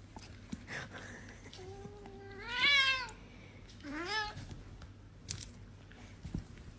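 Cat meowing twice while a German Shepherd licks it: a long meow that starts low, rises and then falls, followed by a shorter rising one. A few faint clicks come near the end.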